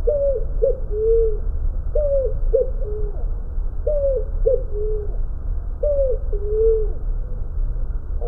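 A dove cooing: a three-note phrase, two short notes and a longer lower one, repeated four times about two seconds apart.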